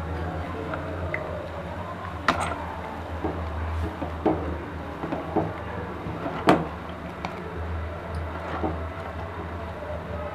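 A steel ladle stirring milk that is curdling into paneer and whey in a stainless steel pot, knocking against the pot a few times, most sharply about two seconds in and again about six and a half seconds in, over a steady low hum.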